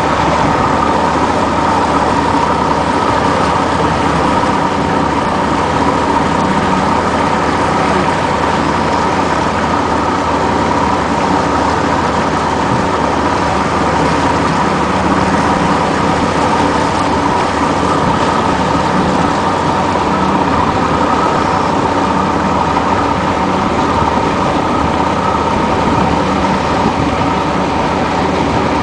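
An engine running steadily and loudly without a break, a constant mechanical drone.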